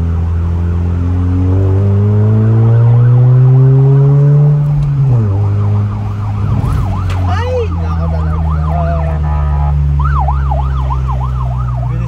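Honda car engine with a new aftermarket muffler accelerating, its pitch rising for about four seconds, then dropping at a gear change just after five seconds and settling into a steady cruise. From about the middle a fast, repeating yelping siren of a nearby emergency vehicle sounds over it.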